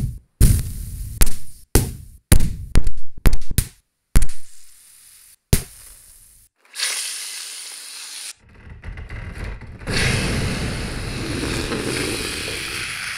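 2200 µF 16 V aluminium electrolytic capacitors bursting: about ten sharp bangs in quick succession, each cut off abruptly, then a steady hiss as a capacitor vents spray from its top.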